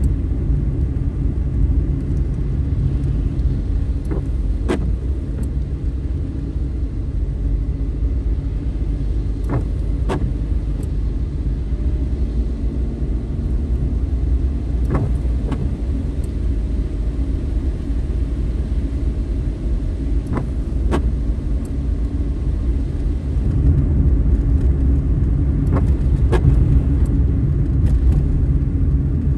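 Inside a moving car on a wet road: a steady low rumble of tyres and engine, with pairs of short clicks from the windscreen wipers about every five seconds. The rumble grows a little louder for the last few seconds.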